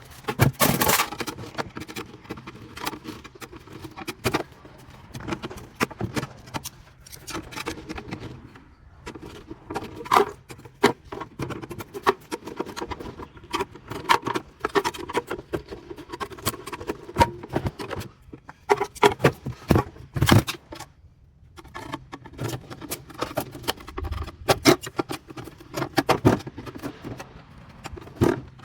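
Hand tools prying and scraping at the steel pieces spot-welded onto a water heater's copper heat exchanger. There is an irregular run of sharp metallic clicks, knocks and scrapes, with short pauses about nine and twenty-one seconds in.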